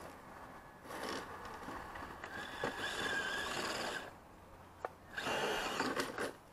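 Electric motor and geartrain of a Traxxas TRX-4 Sport RC crawler whining in two throttle bursts, the first about three seconds long and the second about a second long near the end, as the truck climbs over a log. A few sharp clicks come from the truck's tyres and chassis knocking on the wood.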